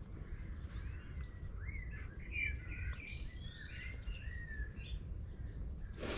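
Several songbirds singing and chirping in quick, overlapping phrases over a steady low rumble, with a brief knock right at the end.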